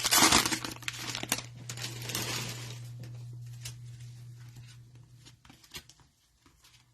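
Wrapper of a trading-card hanger pack being torn open and crinkled, loud for the first three seconds, then fading into a few quiet clicks and rustles as the cards are handled.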